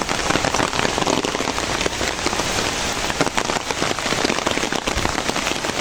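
Rain falling steadily, a dense patter of drops on wet ground, mixed with storm runoff water rushing along a concrete gutter.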